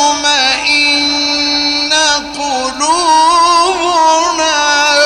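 A male Qur'an reciter chanting in the melodic mujawwad style, drawing out long ornamented notes. A held, wavering note breaks off about two seconds in, and a rising, bending phrase follows.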